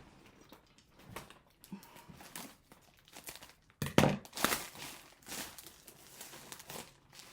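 A mailing package being torn and crinkled open by hand: scattered rustles and small clicks, with one loud, sharp rip or knock about four seconds in.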